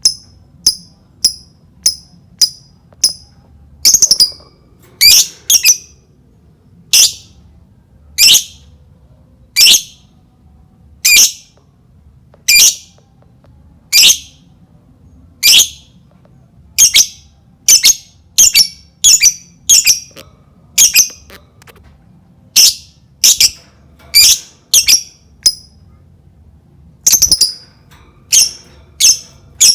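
Lovebird giving a long series of shrill, high squawking chirps, one about every second and sometimes two in quick succession, with smaller quick chirps near the start. It is a lovebird lure call (pancingan), played to get other lovebirds calling.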